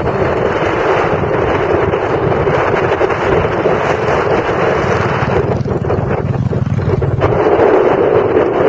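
Motorcycle engine running under way, with a low pulsing beat under a loud rush of wind on the microphone; the low engine beat fades about seven seconds in while the wind rush carries on.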